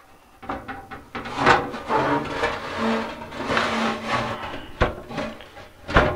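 Metal chassis of an EICO 460 vacuum-tube oscilloscope sliding out through the front of its steel cabinet: uneven scraping and rubbing of metal on metal, with two sharp knocks near the end.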